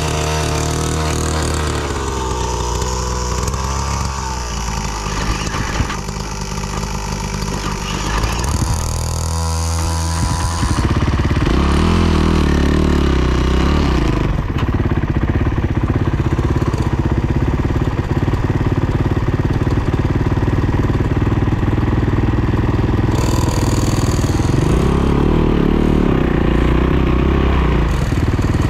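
Off-road motorcycle engine running and revving up and down, its pitch rising and falling repeatedly, with steadier stretches between.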